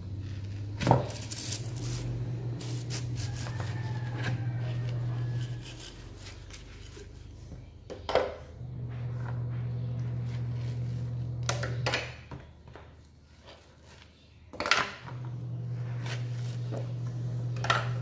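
A bottle brush scrubs the inside of a plastic feeding bottle in a basin of soapy water, with wet brushing and splashing and several sharp plastic knocks. Under it runs a steady low hum that stops and starts again twice.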